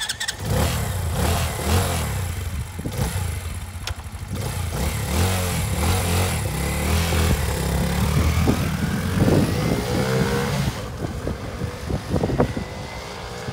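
Tao Tao Hellcat 125's single-cylinder four-stroke engine running and revving close by, then the mini motorcycle pulling away. Its engine note rises as it accelerates, and it gets quieter near the end as it rides off.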